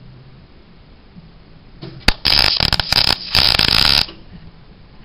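Arc welder tack-welding a steel washer onto a broken motor-mount bracket to repair it: a sharp click about two seconds in, then loud crackling of the arc in four short bursts over about two seconds.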